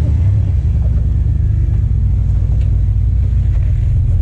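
Jeep's engine running under load as it crawls up a granite rock slab: a loud, steady low rumble.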